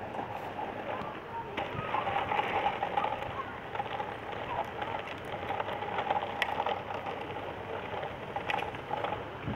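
Outdoor ambience: a steady background hiss with intermittent bird calls.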